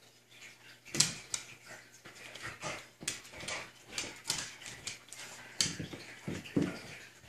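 A dog playing with a knotted rope toy on a hardwood floor: irregular sharp clicks and knocks of claws and the toy hitting the boards, the loudest about a second in, with a duller thud-like burst near the end.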